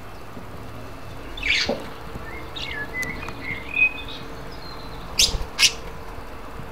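Pet parakeet chirping: a sharp chirp about a second and a half in, a short warble of gliding high notes in the middle, and two sharp chirps in quick succession near the end.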